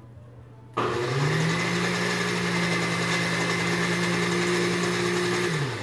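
Countertop blender switched on about a second in, its motor speeding up to a steady whine and running about five seconds, then winding down at the end. It is giving a banana and strawberry yogurt smoothie a little more blending.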